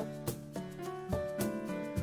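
Background music: a light instrumental melody, with new notes struck every few tenths of a second.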